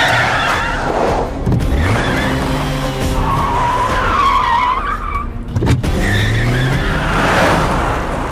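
Cars racing with engines revving up in rising pitch and tyres squealing several times through hard turns, with a brief sharp knock a little after halfway.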